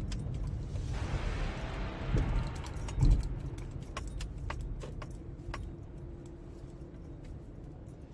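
Inside a car: a steady low engine and road rumble with a single thump about three seconds in, then scattered light clicks and rattles, the rumble sinking slowly toward the end.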